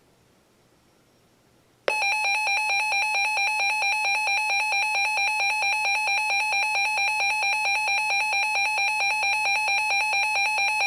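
A Reecom NOAA weather radio's built-in alert alarm going off about two seconds in: a loud, buzzy, rapidly pulsing beep held for about ten seconds, announcing an incoming severe thunderstorm warning broadcast.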